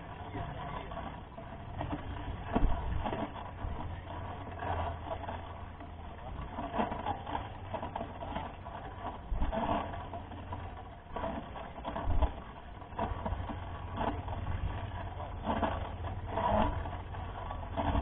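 Mountain bike rolling over rough gravel, its frame and drivetrain rattling unevenly, with a low wind rumble on the microphone. Sharp knocks come twice, a few seconds in and again about two-thirds of the way through, as the bike hits bumps.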